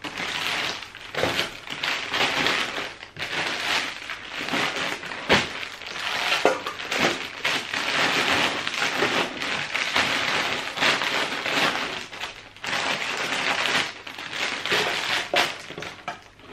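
Plastic candy wrappers and sweet bags crinkling and rustling, with small knocks, as packs of chocolate bars are handled and packed into a cardboard box.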